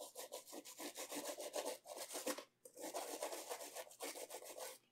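An old toothbrush scrubbing a circuit board wet with isopropyl alcohol in quick back-and-forth strokes, with a short pause about two and a half seconds in. It is cleaning corrosion and waxy residue off the board around a trimmer potentiometer.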